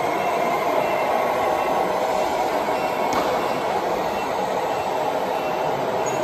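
Radio-controlled scale heavy-haulage truck running as it slowly tows a lowloader, giving a steady mechanical drive noise.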